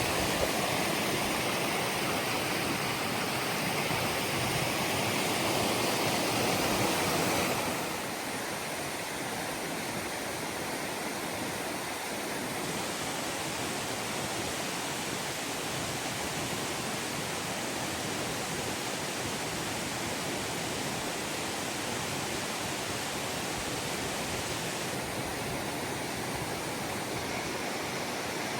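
Steady rush of a waterfall on a mountain creek, pouring over a rock ledge. It drops slightly in level about seven seconds in and then stays even.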